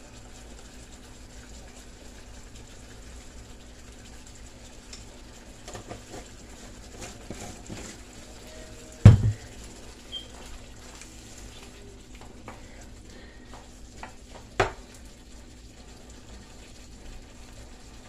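Shrimp-and-sausage tomato sauce cooking in a nonstick wok, with light clicks and scrapes of a plastic spoon against the pan. Two louder knocks stand out: the loudest about nine seconds in, another near fifteen seconds.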